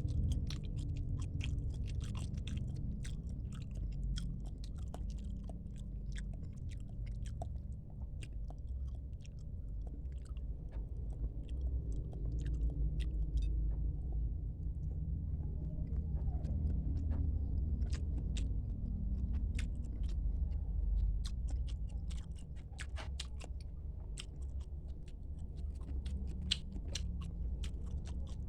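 Close-miked chewing of a mouthful of tilapia fish with spinach soup, with a dense run of small wet clicks and crunches, over a steady low rumble.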